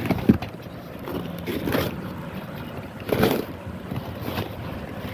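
Handling noise: rustling and scraping with a few sharp clicks, over a steady rumble like wind on the microphone.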